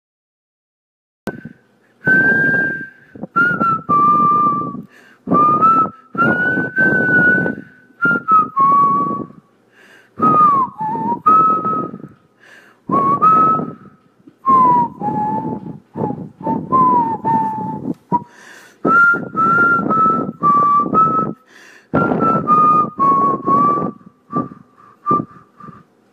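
A person whistling a tune through the lips, breathy and close to the microphone, in short phrases of a few notes with brief pauses between them.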